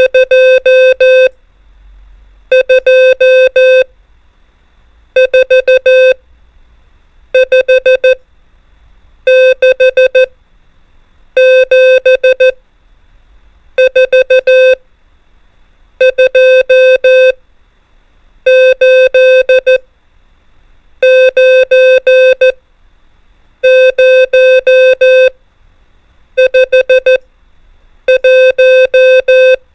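Morse code numbers keyed on a steady mid-pitched sidetone. Short groups of dots and dashes come about every two seconds, with a silent gap between each character.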